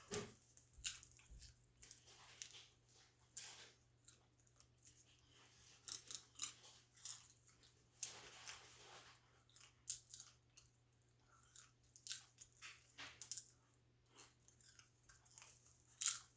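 Popcorn being chewed: quiet, irregular crunches, with a faint steady hum underneath.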